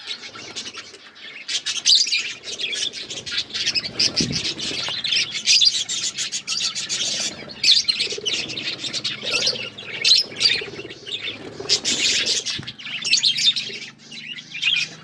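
A flock of budgerigars chattering, with rapid, continuous high chirps and warbles.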